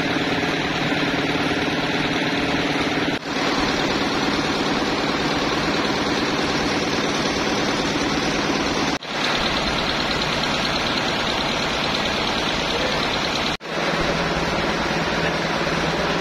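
Band sawmill's engine running steadily with no cut under way, a continuous even machine drone. It drops out for an instant three times.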